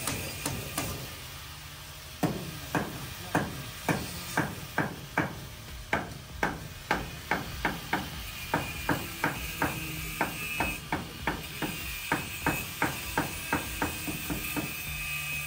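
Hammer driving nails through a board wall panel into a wooden frame: a steady run of sharp strikes, about two a second, starting about two seconds in and stopping near the end.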